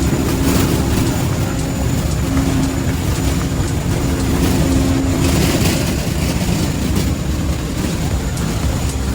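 Turboprop aircraft engine running steadily at high idle on a ground run, its propeller out of feather: a steady drone with a thin high whine. The run follows a compressor wash.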